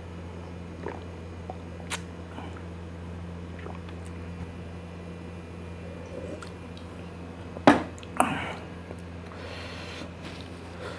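A person gulping a drink from a glass jar, with small wet swallowing sounds over a steady low hum. About three-quarters through comes one sharp knock as the jar goes down on the table.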